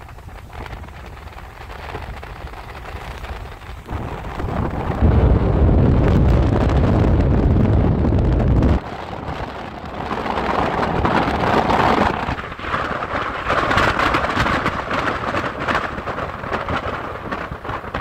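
Wind rushing past a moving car and buffeting the microphone. A heavy low rumble from about four to nine seconds in cuts off suddenly, followed by a lighter, higher hiss.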